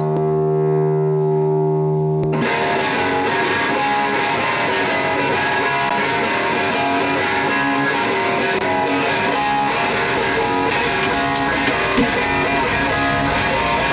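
Intro music led by electric guitar. A held, sustained chord rings at first, then about two and a half seconds in a full band comes in with a steady beat.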